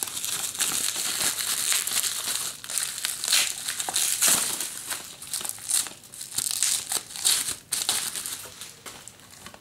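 Bubble wrap crinkling and crackling as it is handled and a Blu-ray case is pulled out of it by hand. The crackling dies down near the end.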